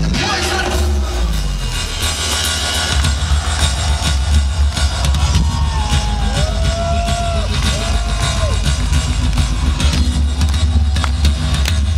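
Loud live electronic dance music over a festival PA, with a heavy bass beat and synth lines. About halfway through, two short synth notes glide up and back down.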